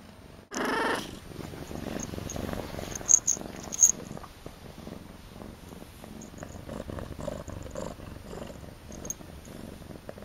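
Domestic kitten purring steadily, close to the microphone. A brief pitched sound comes just after the start, and two sharp clicks are heard about three and four seconds in.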